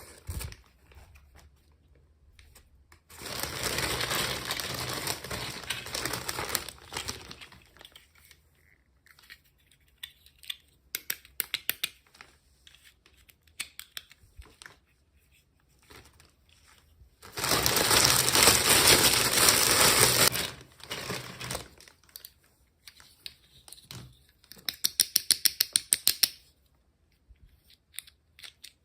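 Packaging being crinkled and torn open by hand in two long, loud stretches, with scattered small clicks and rustles between them and a quick run of rapid clicks near the end.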